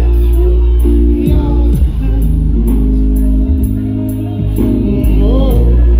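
Live band music: electric bass and synthesizers play deep sustained notes and held chords, over a regular high tick about twice a second.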